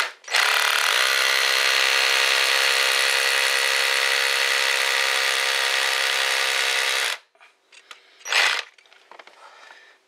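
Electric drill running a bit into a painted wall: the motor speeds up over the first second, drills steadily for about seven seconds, then stops suddenly.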